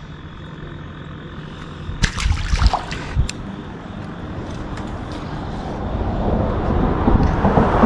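Traffic noise from the road bridge overhead: a steady low rumble that swells over the last few seconds as a vehicle approaches. About two seconds in there is a brief clatter of knocks and a little splashing.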